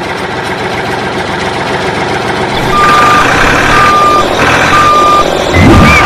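Reversing alarm beeping, four even beeps about a second apart starting about three seconds in, over a steady mechanical running noise.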